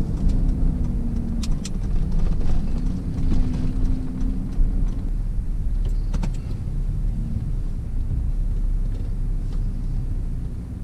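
Pickup truck engine and road noise heard inside the cab while driving: a steady low rumble with a faint hum, and a few light clicks about a second and a half in and again about six seconds in.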